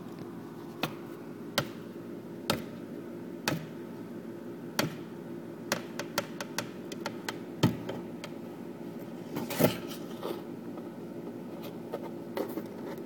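Sharp taps and scrapes of a pencil poking against a cardboard box, coming irregularly about once a second, over a steady low hum.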